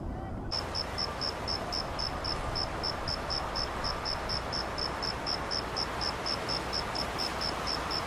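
A cricket chirping steadily, about four to five short, high chirps a second, starting about half a second in, over a steady outdoor hiss.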